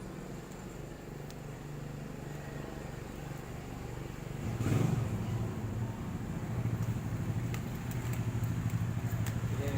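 A motor vehicle's engine running steadily, with a low hum that grows louder a little before halfway and stays louder, and a few faint clicks over it.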